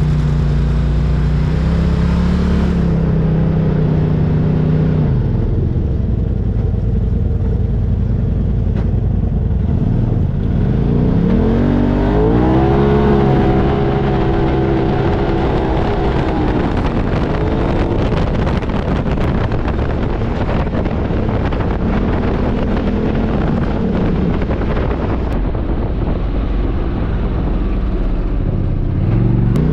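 Side-by-side UTV engine running under way over a constant rumble of travel noise, revving up about ten seconds in, holding, then easing off, with smaller rises in engine speed later on.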